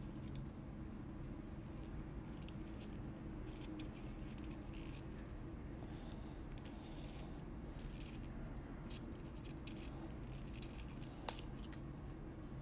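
A burnt umber Faber-Castell Polychromos coloured pencil being sharpened in a pencil sharpener: faint, irregular scraping strokes of the blade shaving the wood and core, with a single sharp click near the end.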